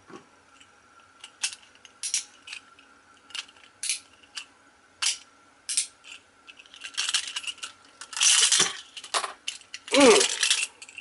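Hard plastic clicking and rattling from a Beyblade Burst launcher, ripcord and top being worked by hand, in scattered sharp clicks with thicker stretches of rattling about two-thirds of the way through and again near the end. The launcher keeps sticking and will not release the top properly.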